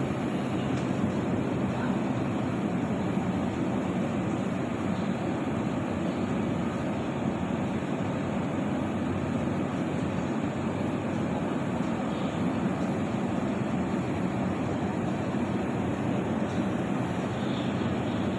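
Steady mechanical drone with a low hum, unchanging throughout.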